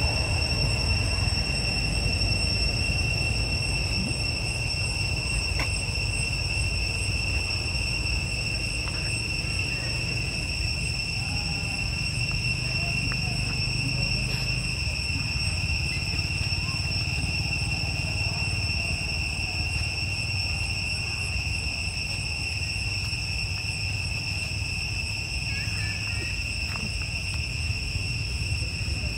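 A steady, unbroken high-pitched insect drone, with a low rumble beneath it.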